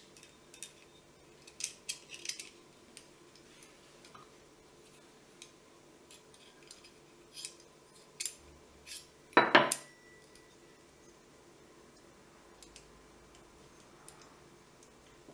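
Small metal clicks and taps as decocker parts and a thin steel tool are worked against a Sig Sauer P226 pistol frame. A short, louder clatter comes about nine and a half seconds in.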